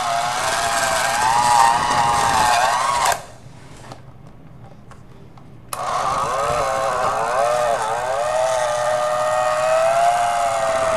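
Electric hand mixer running, its motor whine wavering up and down in pitch as the beaters work through a thick whipped-topping mixture in a plastic bowl. It stops about three seconds in and starts again a couple of seconds later.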